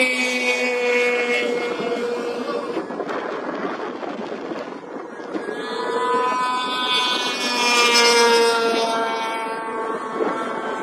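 Racing snowmobile engines running at high revs as sleds pass on the track: a high, steady engine whine that fades over the first few seconds, then a second pass builds from about five seconds in, loudest near eight seconds, its pitch sagging slightly.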